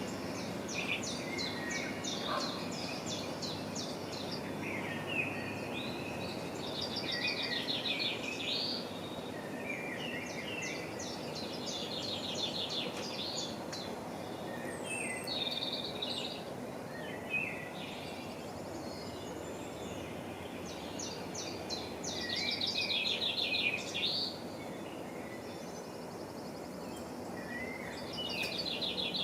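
A songbird singing repeated phrases of rapid trills and chirps, a new phrase every few seconds, over a steady low background rumble.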